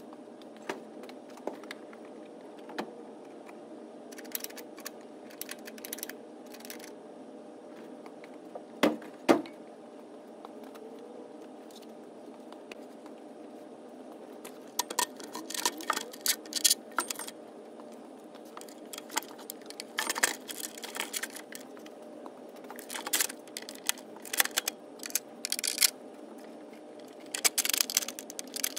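Light metallic clinks and clatters as engine parts are handled and set down while intake gaskets and an aluminium intake manifold are fitted to a V8. There is a single louder clank about nine seconds in, and runs of quick clicks in the second half, over a steady low hum.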